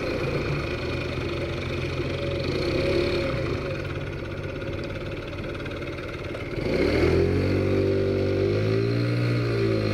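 Taotao Zummer 50cc scooter engine running on the move, heard on board. About seven seconds in it revs up and accelerates, then holds a steady, higher drone.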